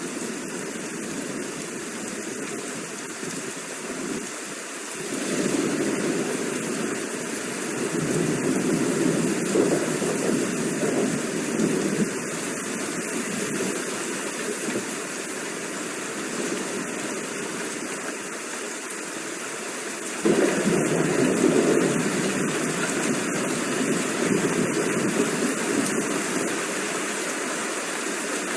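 Steady heavy rain. It swells louder about five seconds in and again suddenly about twenty seconds in.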